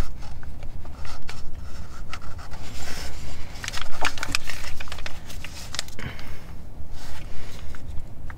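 A person breathing heavily close by, with small scrapes and clicks from gloved hands working at a car's rear differential, over a low steady hum.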